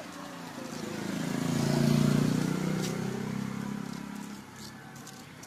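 A motor vehicle passing by: its engine sound swells to a peak about two seconds in, then fades away over the next two seconds.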